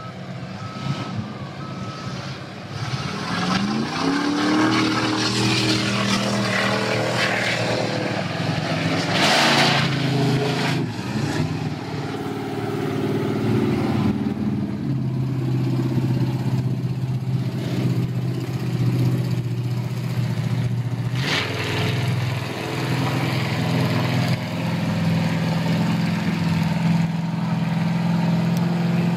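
Engine of a lifted Chevy pickup mud truck on tractor tires pulling through a mud bog: the revs climb a few seconds in, then hold with dips and surges under load. A brief rush of noise comes about nine seconds in.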